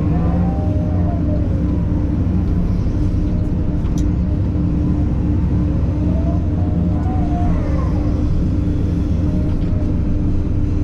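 Takeuchi TB2150 excavator running steadily, its hydraulic whine rising and falling twice as the machine works. A single sharp click comes about four seconds in.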